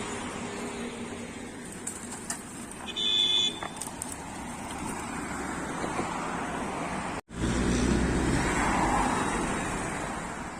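Road traffic and vehicle engines running, with a short high beep about three seconds in. After a sudden cut about seven seconds in, a louder vehicle engine rumble.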